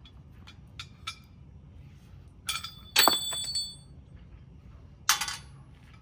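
Metal parts of a mower attachment being fitted: a few light clinks, then a loud clank about three seconds in that rings briefly, and another sharp knock near the end.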